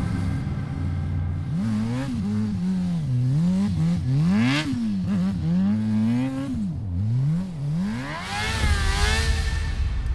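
A vehicle engine revving up and down over and over, its pitch rising and falling about once a second, as when drifting on ice. It holds a steady note at first, and near the end a rush of noise comes in with a rising whine.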